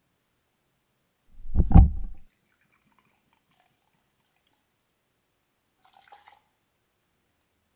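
A loud low thud about a second and a half in, then vodka trickling faintly from a bottle into a steel jigger, and a brief splash about six seconds in as the jigger is tipped into a mixing glass over ice.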